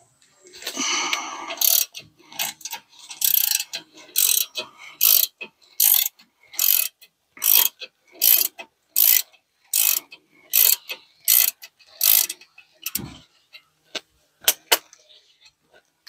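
Ratchet wrench with a 7 mm hex bit turning out the front brake caliper bolts: a long run of ratcheting strokes, about one every 0.8 seconds. A dull thump comes near the end.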